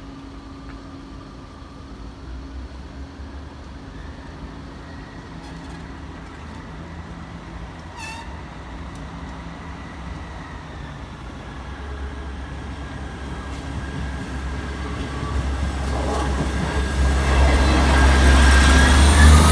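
Diesel passenger train approaching, its engine rumble growing steadily louder over the last several seconds as it nears. A high squeal joins in near the end.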